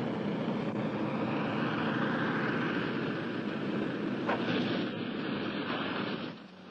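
Twin-engine light plane, a Cessna 310, with its engines running steadily as it touches down on a dirt field. The engine noise drops away suddenly shortly before the end.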